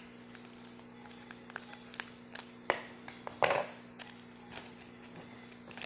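Foil trading-card booster pack being handled as it is cut open with scissors and the cards are drawn out: scattered small clicks and taps of the foil and the blades, with one louder crinkle of the wrapper about three and a half seconds in.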